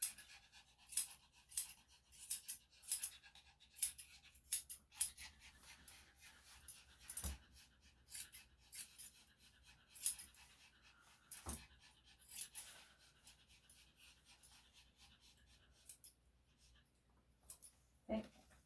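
Grooming scissors snipping again and again, sharp short clicks every half second or so, while a Yorkshire Terrier pants. Two duller knocks come about seven and eleven seconds in.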